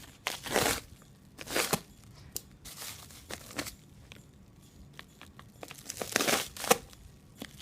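Plastic wrap and packaging being torn and crinkled by hand in irregular bursts of rustling and crackling, as new BMX forks are unwrapped.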